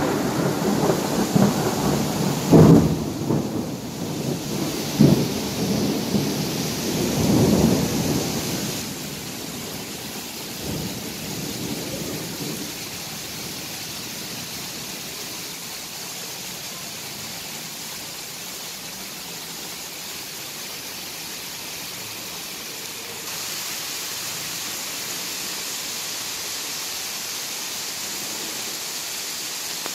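Heavy rain falling in a steady hiss, with loud low rumbles during the first several seconds. The hiss grows brighter about 23 seconds in.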